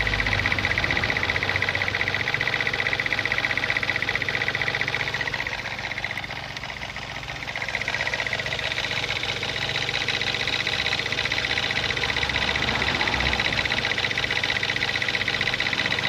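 Mazda 626 engine idling with a rapid clickety-clack from the timing-belt end near the crank pulley, briefly quieter about halfway through. The owner suspects the crankshaft timing-belt sprocket is not on snugly and, once the belt warms up, loosens and slaps back and forth.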